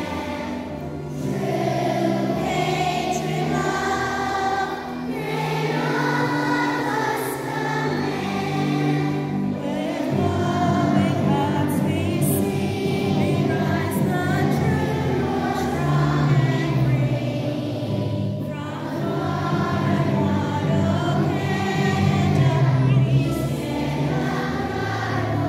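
Choir singing a song together over instrumental backing music.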